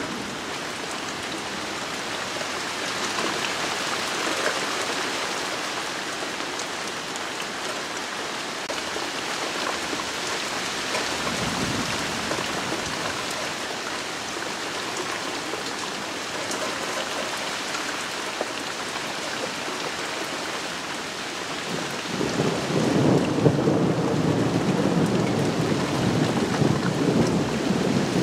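Rain falling steadily on leaves, with a rumble of thunder rolling in about three-quarters of the way through and going on to the end.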